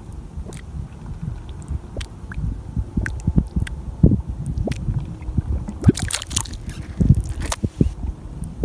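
Mud volcano bubbling: thick mud gurgling and plopping in irregular pops, with a cluster of sharper crackles near the end.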